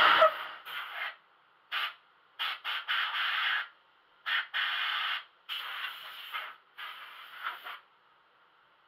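Short blasts of compressed air from a hand-held air-hose blow gun, about eight hissing bursts of varying length, clearing dust from the carved sign. A louder tool noise cuts off right at the start.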